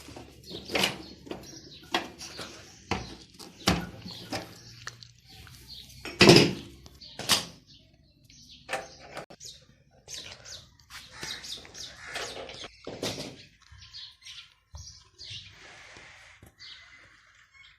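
Irregular metal clinks, knocks and scrapes of tools and shock-absorber hardware while the rear shocks of a Honda CG125 motorcycle are being refitted; the two loudest knocks come about six and seven seconds in.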